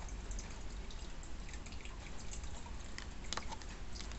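Tarot cards being handled and slid from one hand to the other: a scatter of light clicks and taps, the sharpest ones about three seconds in, over a low steady hum.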